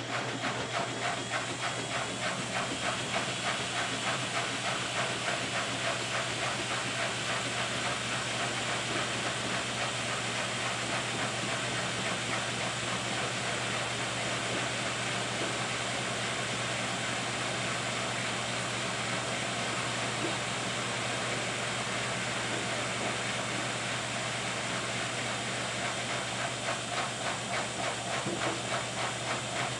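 Miele W3033 front-loading washing machine spinning, its drum turning at speed: a steady rushing hiss over a low motor hum, building over the first couple of seconds and then holding steady.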